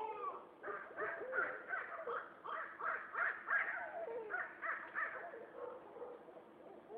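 A run of short, harsh animal calls repeated several times a second, easing off near the end.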